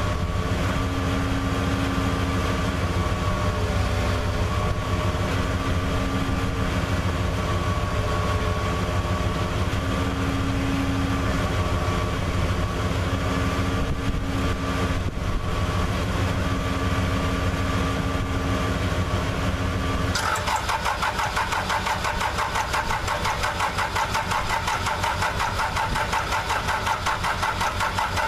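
Freshly overhauled diesel engine of a Case 580C tractor being started: a steady engine drone, which changes abruptly about twenty seconds in to a quick, even pulsing rattle.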